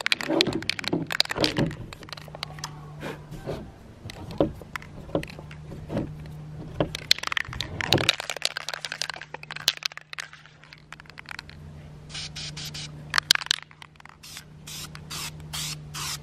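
Hard plastic engine covers being shifted and scraped across a table, with scattered knocks and clicks. Near the end an aerosol spray-paint can is shaken, its mixing ball clicking about three times a second.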